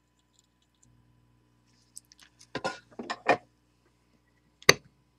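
Workbench handling noises as the soldering iron and wire are taken away from the soldered chip resistor: a few brief scrapes and knocks around the middle, then one sharp click near the end.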